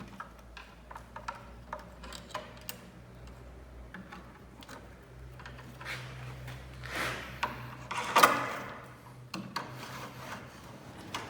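Wooden window sash and its spring-balance hardware being handled: scattered clicks and small knocks, with wood rubbing or scraping twice, about seven and eight seconds in, the second the loudest.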